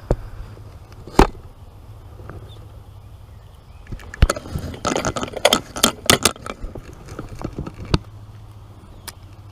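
Scattered sharp clicks and rattles, the sound of gear being handled, with a dense cluster from about four to eight seconds in, over a low steady hum.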